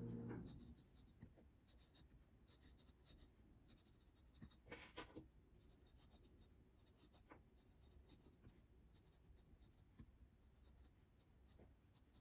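Faint scratching of a glass dip pen's nib on paper as letters are written one after another, with a few brief sharper scratches. A low hum cuts off about half a second in.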